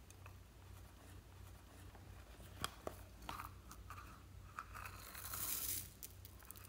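Faint handling of a rubbery Hello Kitty-shaped plastic case being squeezed and opened over a bowl of slime: a few small sharp clicks and taps, then a crinkly, hissing rustle lasting about a second near the end.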